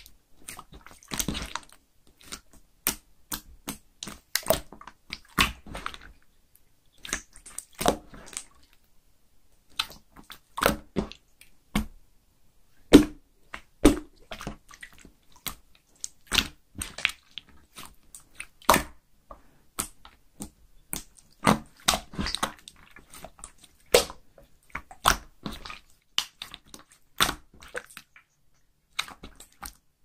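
Clear slime being squeezed, stretched and folded by hand, giving irregular sharp wet pops and clicks in clusters with short pauses between them.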